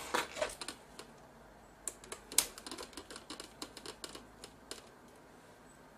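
Scattered small clicks and taps of hands handling a camcorder's metal chassis and internal bracket, with one sharper click about two and a half seconds in.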